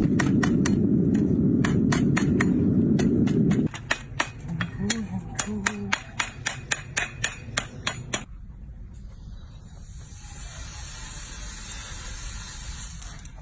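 A run of sharp hammer taps, about three a second, during hoof work on a donkey, stopping about eight seconds in. A loud low rumble lies under the first few seconds and cuts off suddenly.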